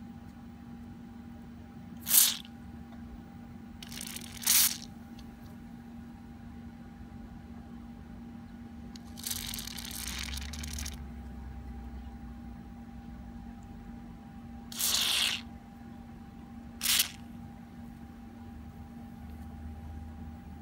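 Short hissing spurts of aerosol carburettor cleaner sprayed through a red straw nozzle into a small brass carburettor jet to clear it: five spurts, the middle one longer and softer. A steady low hum runs underneath.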